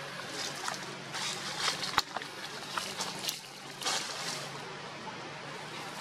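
Dry fallen leaves rustling and crackling, with irregular short crunches and a sharp click about two seconds in.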